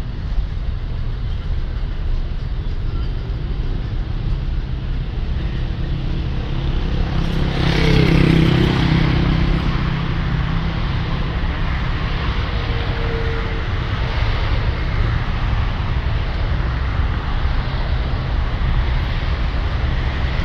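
Street traffic noise with a steady rumble, and one vehicle passing louder about eight seconds in.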